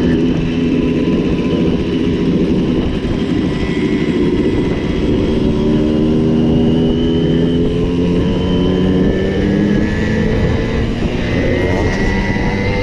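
Several Simson two-stroke moped engines running together, their pitches rising as they accelerate, with another rise near the end.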